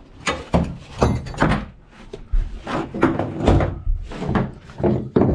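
Metal hooks and a ratchet of tie-down straps clanking and knocking against the plywood floor and walls of an enclosed car trailer as the straps are unhooked from a car. A quick run of sharp knocks and rattles.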